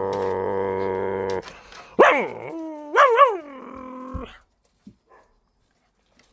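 Dog-like howling: a long, steady, low held tone for about a second and a half, then, after a short break, higher rising and wavering howls and whines that stop about four seconds in.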